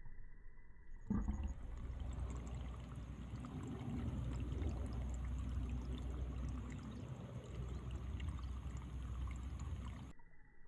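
A steady rushing outdoor noise, heaviest in the low end, starts abruptly about a second in and cuts off shortly before the end.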